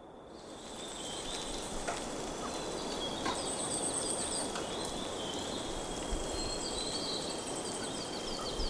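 Small songbirds chirping and trilling over a steady outdoor background hiss, with a thin, steady high-pitched tone running underneath.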